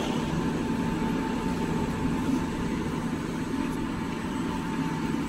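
Kitchen towel paper converting machine running steadily: a constant mechanical hum with a thin, steady high whine on top.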